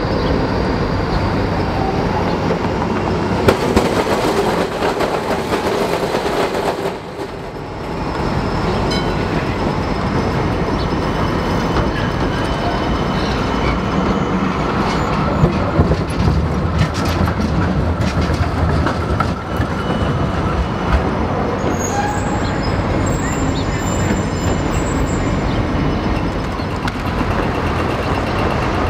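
Electric street trams rolling through a busy intersection over a steady rumble of street traffic. Near the middle come a run of sharp clicks and clacks as tram wheels cross the rail junctions.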